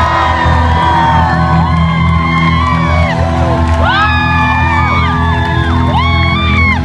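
Live concert heard from the audience: many fans scream and whoop over sustained, held low chords coming through the PA.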